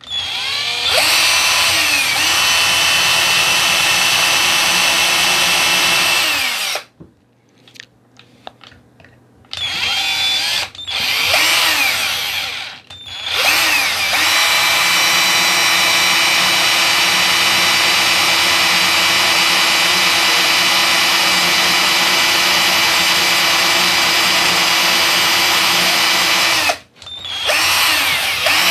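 Cordless drill with a bit spinning against a stripped tri-point screw in an iPhone 7, an attempt to bite in and turn the screw loose. The steady motor whine runs for about six seconds, stops, comes back in two short bursts, then runs about thirteen seconds, with a brief stop near the end before it starts again.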